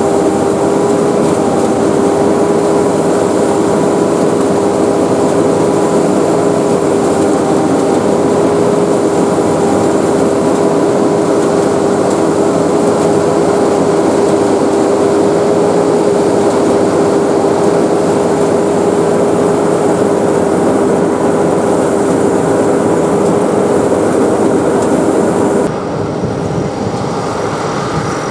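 Sakpattana SS100 mini rice combine harvester running steadily at constant speed, with an unchanging hum over a broad mechanical noise. About three seconds before the end the sound abruptly drops and changes character.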